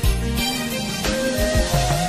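Background music: a melody over a gliding bass line, with drum hits.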